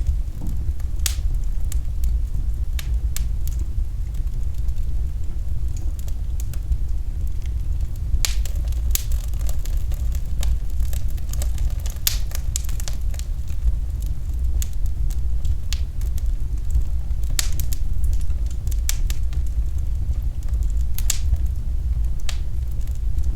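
Fire in a fireplace crackling, with sharp pops at irregular intervals over a steady low rumble.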